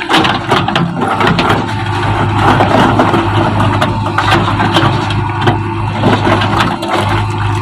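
Diesel engine of a JCB backhoe loader running steadily under work, with repeated cracking and crunching clatter of breaking masonry and debris.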